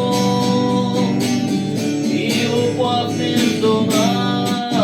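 Acoustic guitar strummed in a steady rhythm under a sung song; a voice holds one long note for about the first second, then the guitar carries on between sung lines.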